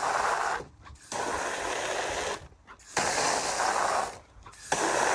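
Hose spray nozzle hissing in four bursts of about a second each, with short breaks between them, its water spattering into a plastic kiddie pool.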